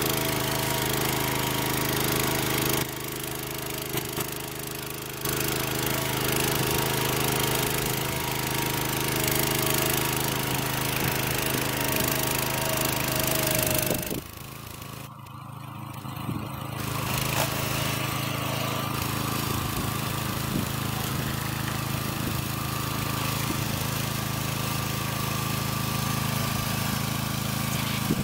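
Two-wheel walking tractor's small engine running steadily under load as it drives a rotating disc plow through sod, with mechanical clatter over the engine hum. The sound dips briefly about three seconds in and drops and shifts about fourteen seconds in before settling back to a steady run.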